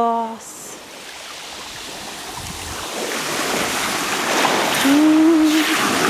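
Sea surf washing up a coarse, pebbly beach and around bare feet, the rush of water building steadily louder from about a second in. A short hum from a woman's voice comes near the end.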